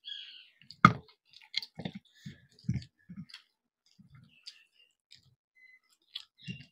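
Close-up eating sounds: chewing and small mouth clicks, a few a second, from people eating chicken and rice. About a second in there is one sharper knock.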